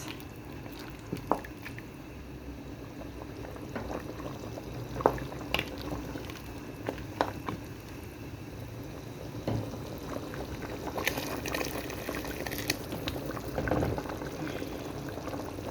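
Pot of lamb boiling in water: steady bubbling with scattered sharp pops.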